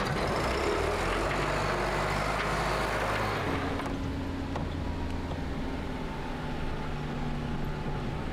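Suzuki Jimny's engine and road noise heard from inside the cabin while it drives, towing a trailer heavily loaded with sand. The engine note changes about three and a half seconds in.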